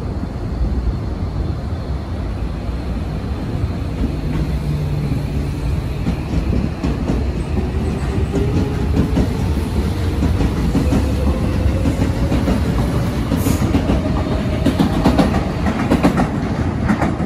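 Tobu 70000-series electric train pulling away, its traction motor whine rising slowly in pitch as it gathers speed over the rumble of the wheels, with wheels clacking over rail joints near the end.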